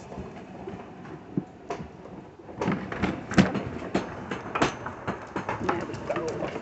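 Irregular clattering clicks and knocks, a few at first and then a busy run of them from about two and a half seconds in.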